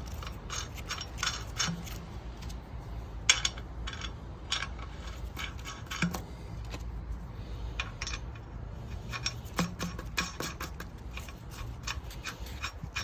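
Steel lug nuts clicking and clinking against the wheel studs and wheel as they are spun on by hand, irregular sharp metallic ticks over a low steady hum.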